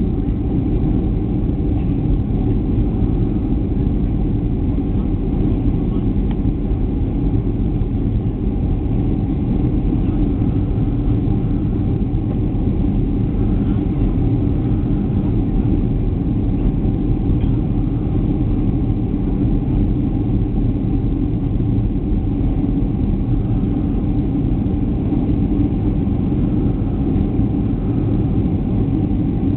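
Jet airliner cabin noise on the approach to landing: the steady low drone of the engines and airflow past the fuselage.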